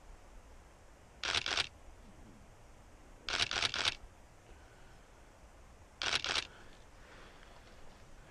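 Camera shutter firing in three short bursts of several rapid clicks each, the shots spread a couple of seconds apart.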